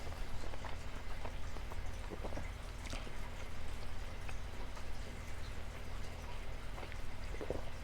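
Close-up eating sounds: scattered soft clicks and smacks of chewing a mouthful of shrimp alfredo pasta, over a steady low hum.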